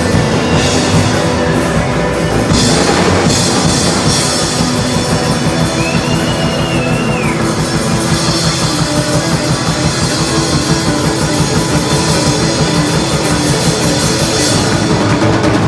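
Rock music played by a band: a drum kit keeping a steady, driving beat under repeating bass notes and guitar.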